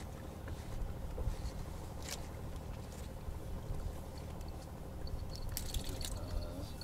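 Steady low rumble of a small boat riding on the water, with a few light clicks and rustles from handling fishing gear, most of them near the end.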